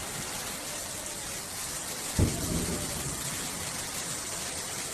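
Thunderstorm: heavy rain pouring steadily, with a sharp thunderclap about two seconds in that rumbles off briefly.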